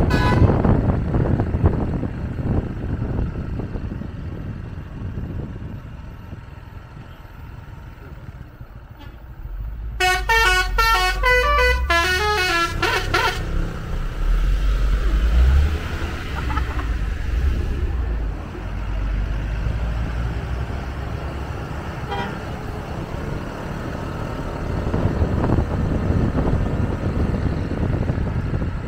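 Road traffic noise, then about ten seconds in a bus's telolet multi-tone horn plays a quick tune of changing notes for about three seconds. A heavy vehicle's low rumble follows.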